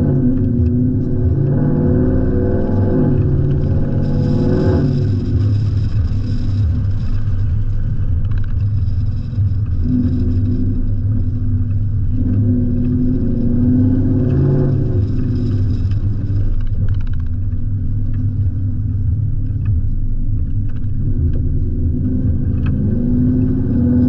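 Ford Mustang GT convertible's V8 engine and exhaust heard from the open car while driving, the engine note climbing and falling several times as it accelerates and eases off.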